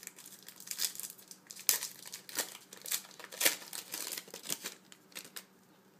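Foil wrapper of a baseball card pack crinkling and tearing as it is pulled open by hand: a run of sharp crackles that stops near the end.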